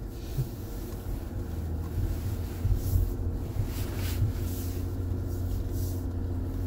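Ineos Grenadier's straight-six engine and drivetrain heard from inside the cabin: a steady low drone as the truck crawls along a dirt trail.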